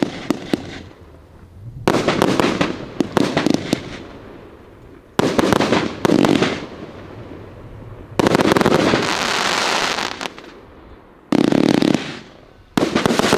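Riakeo 'Peking Opera 3' firework going off in a series of about six loud shots a second or two apart. Each bang is followed by sharp pops or a long spell of dense crackling.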